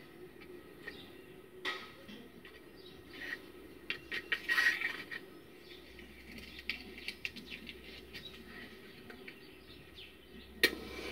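Scattered light clicks and taps of matchsticks being handled, with a quick cluster of clicks and chirps about four seconds in. Near the end comes the loudest sound: the sharp scratch of a safety match struck on its matchbox, with the hiss of the flare just starting.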